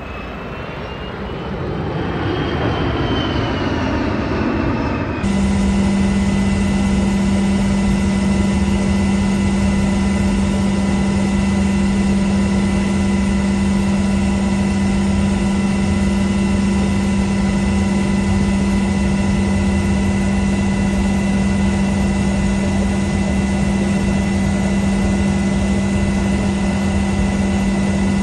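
An aircraft flying past, its engine pitch rising and then falling, then after about five seconds a sudden change to a loud, steady aircraft engine drone with several constant tones.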